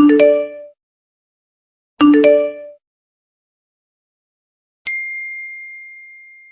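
Phone message notification tones: a short bright chime of a few quick notes, played twice two seconds apart, then near the end a single clear high ding that rings on and slowly fades.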